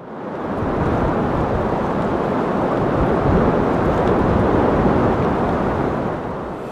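Strong storm wind rushing as a steady, deep noise, fading in at the start and easing a little near the end.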